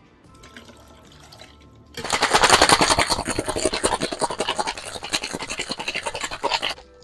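Ice rattling hard inside a stainless steel tin-on-tin cocktail shaker, a fast, dense clatter. It starts about two seconds in and stops abruptly near the end.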